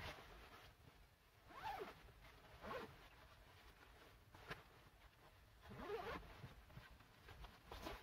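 Faint zipping and rustling of a nylon puffer jacket being handled, in about five short sweeping strokes spread across a few seconds.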